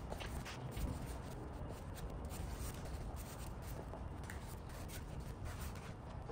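Plastic spreader scraping body filler across a mixing board and onto a bare-metal bumper: a run of short, irregular scraping strokes.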